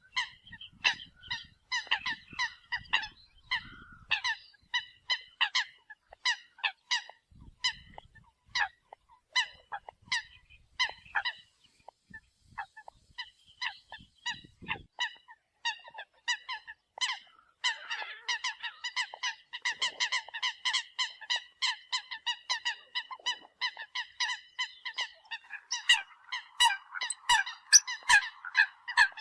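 Eurasian coots calling: a steady stream of short, sharp honking notes, several a second, with the calls growing denser after the middle and loudest near the end.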